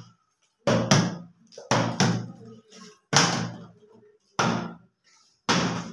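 Plastic water bottles being flipped and landing on a wooden tabletop: a run of about eight hard thuds, irregularly spaced, each dying away quickly.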